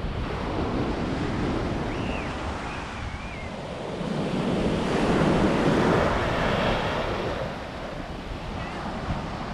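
Small waves breaking on a sandy beach, with wind buffeting the microphone. The surf swells louder about halfway through.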